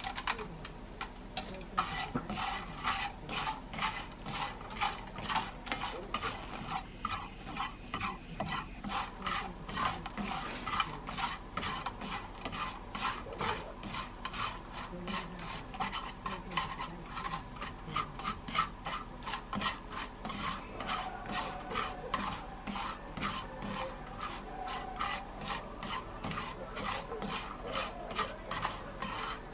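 Rhythmic scraping and stirring, a few strokes each second: small dried sardines being stirred in a pan as they are dry-roasted for gomame.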